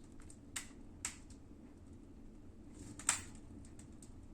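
Wood stove burning dry wood with a strong draft: a steady low hum, with a few sharp crackles from the burning wood, the loudest about three seconds in.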